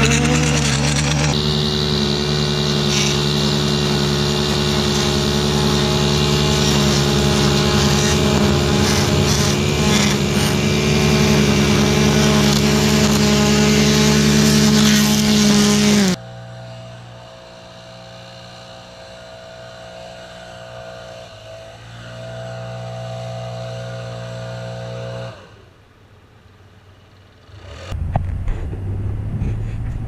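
Stihl gas-powered edger engine running steadily at high speed while edging along a concrete sidewalk. About halfway through it cuts to a quieter, steady engine of a string trimmer working along a fence, and near the end to the low rumble of a pickup truck's cab on the road.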